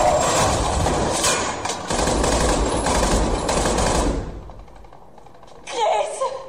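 Rapid automatic gunfire from a war-film soundtrack, dense and continuous, dying away about four seconds in. A short loud burst of another sound follows near the end.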